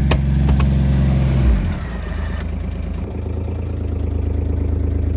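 A vehicle engine running, loud at first, then dropping to a lower, steady note about one and a half seconds in, with a couple of light knocks near the start.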